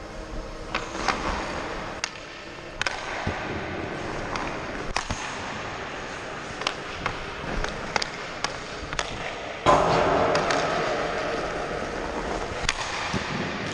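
Ice skates gliding on a rink, with sharp clicks of a hockey stick blade tapping the puck while stickhandling. About ten seconds in, a sudden louder scrape of skate blades on the ice that fades over a couple of seconds.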